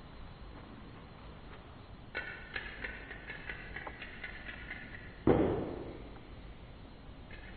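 A plastic wiffle ball being batted about by a cat on a hard floor: a run of small ringing clicks and taps, then one sharp thump about five seconds in.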